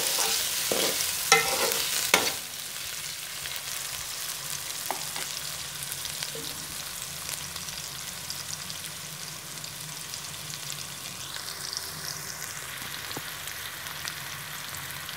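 Sliced onions frying in hot oil in a metal karahi: about two seconds of stirring, with the utensil clicking and scraping against the pan, then a steady sizzling hiss.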